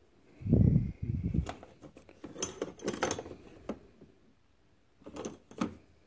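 Low rubbing bumps about half a second in, then light metallic clinks and rattles in a few short clusters as small metal tools or parts are handled.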